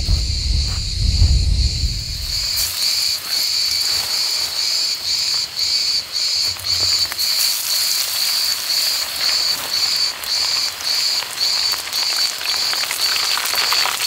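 Fish frying in hot oil in a pan on a gas camping stove, a steady sizzle that thickens about three seconds in. Over it an insect chirps in a fast, even rhythm of about three pulses a second.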